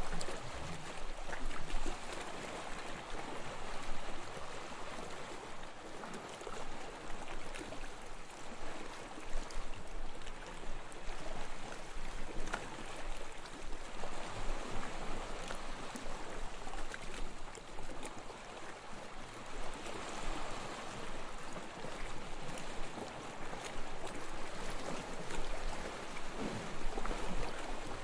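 Gentle ocean waves washing onto a beach: a steady wash of surf that swells and ebbs every few seconds, with fizzing and crackling as the water runs up and drains back.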